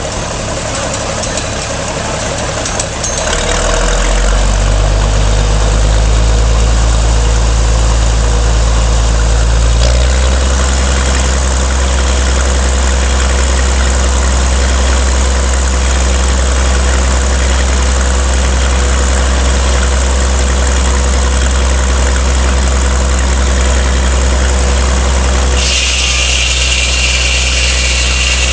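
Engine powering a sawmill running steadily. It gets louder about four seconds in and changes pitch about ten seconds in. Near the end a high whine with a hiss joins it.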